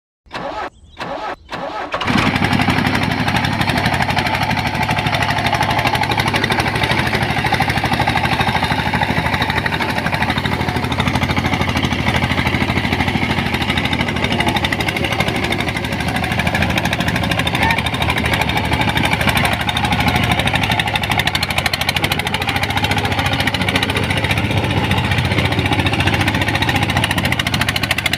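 Small engine of a home-built mini tractor starting: a few short bursts, then it catches about two seconds in and runs steadily with a fast, even beat.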